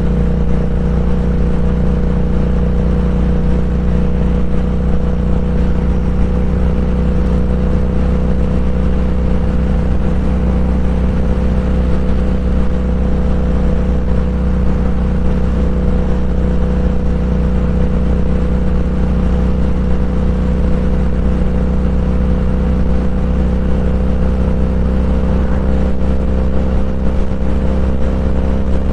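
Motorcycle engine running steadily at an even cruising speed, with a low rush of wind and road noise; the engine pitch holds constant throughout.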